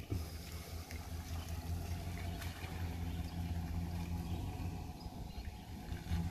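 Pickup truck engine running at low speed as the truck moves slowly along a wet road. A steady low hum, with tyre noise on the wet pavement.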